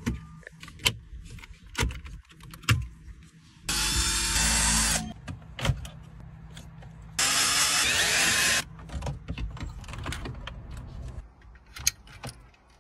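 Plastic dash trim and a car head unit being pried out and handled, with many short clicks and snaps of trim clips. Twice, about four and eight seconds in, a loud steady whirr lasts just over a second and stops abruptly.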